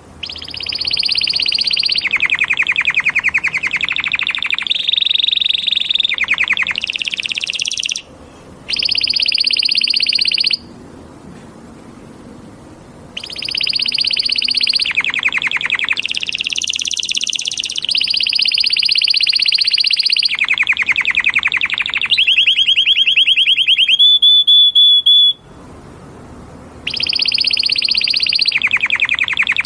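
Canary singing loudly in long phrases of fast trills and rolls, high-pitched, with short pauses between phrases and a held whistled note shortly before the last pause.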